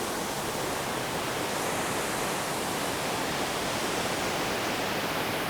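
River waterfall pouring: a steady, even rush of falling water.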